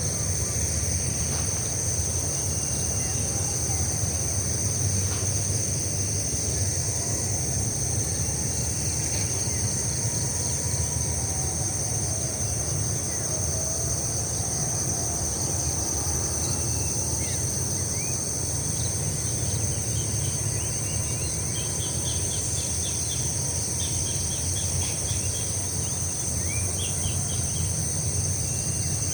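Steady high-pitched chorus of insects trilling without pause, over a low steady rumble, with birds chirping here and there, more often in the second half.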